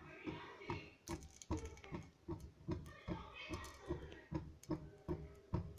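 Faint, irregular clicks and light knocks, about three a second, with a faint voice in the background.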